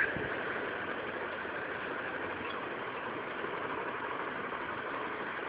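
Steady background noise: an even hiss and rumble with no distinct events.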